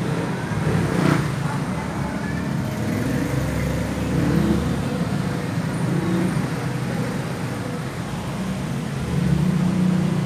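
Steady low rumble of road traffic, with vehicle engines swelling and fading.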